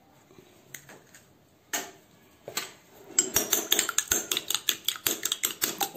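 A few light knocks, then from about three seconds in a metal spoon beats an egg in a small porcelain bowl, clinking rapidly against the bowl several times a second.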